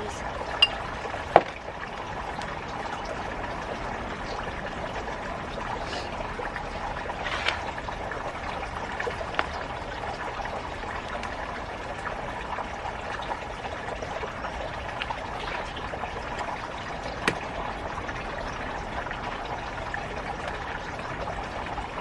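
Steady trickle of running water, with a few sharp clicks, the loudest about a second in and another about 17 seconds in.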